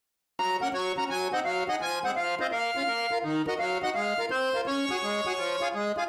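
Background music intro jingle, a melody of quick changing notes that starts about half a second in and cuts off abruptly at the end.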